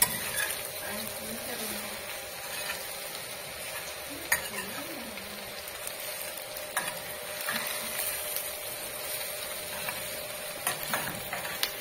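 Strips of cuaresmeño chile and onion sizzling in a cazuela as a metal spoon stirs them, being half-cooked. A steady frying hiss with a few sharp clicks of the spoon against the pot.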